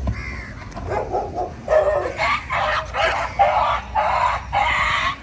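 A rapid series of about eight loud animal calls, starting about a second in.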